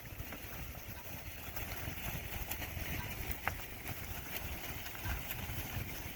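Outdoor pasture ambience: wind rumbling unevenly on the microphone under a steady high hiss, with a few scattered faint clicks.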